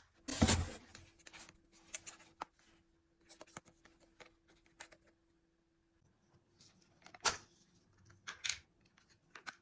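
Scattered light clicks and rustles of food preparation and handling of kitchen items, with a louder knock about half a second in and another around seven seconds. A faint steady hum runs underneath and stops about six seconds in.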